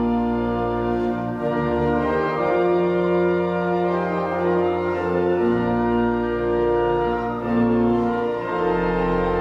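Pipe organ playing sustained chords over a deep bass, the chords changing every second or two.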